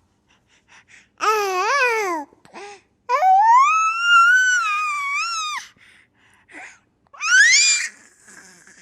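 Baby laughing and squealing in high-pitched bursts: a short wavering squeal about a second in, a long high squeal a little after three seconds, and a brief rising squeal near the end.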